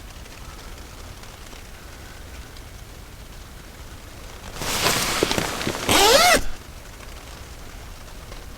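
Ice sliding and rolling down the outside of a tent's fabric: a rushing scrape of about two seconds, starting about halfway through, that ends in a squeaky whine rising and falling in pitch.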